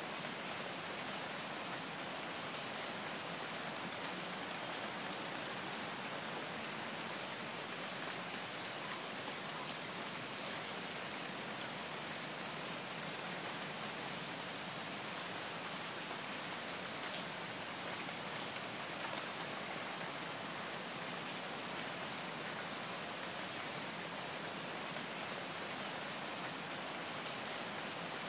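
Steady rain, an even hiss with no breaks or changes in level.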